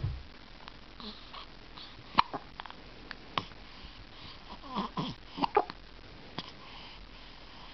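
Repeated hiccups: single sharp hiccups every second or so, with a cluster of short squeaky hiccup sounds a little past the middle.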